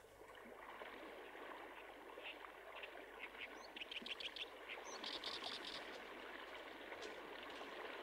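Fast river water flowing over rocks, a steady rush that fades in at the start. Birds chirp a number of times in the middle.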